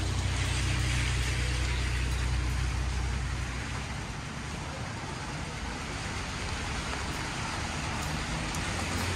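Rainy city street ambience: a steady hiss of rain and wet road, with a low vehicle engine rumble that fades out about three seconds in.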